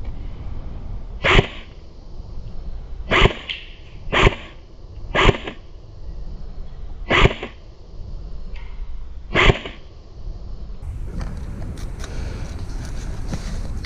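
Airsoft gun fired six single shots at irregular intervals of one to two seconds, each a short, sharp puff over steady outdoor background noise.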